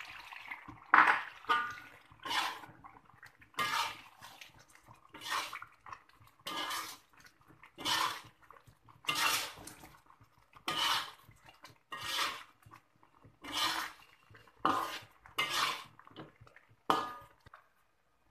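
Metal spatula scraping and clanking against a metal wok as a wet chicken rendang is stirred, in regular strokes a little over a second apart.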